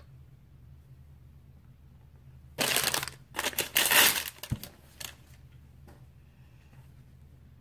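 Plastic blind-bag wrapper crinkling and tearing open in a burst of about two and a half seconds, starting a little before the middle, with a low bump partway through.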